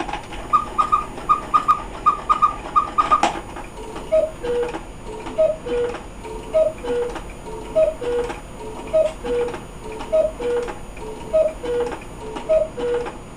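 Quail cuckoo clock striking the hour. It opens with a short run of quick, high double notes from the quail, then the cuckoo's two-note falling call repeats about every 1.2 seconds, blown by bellows with new leather.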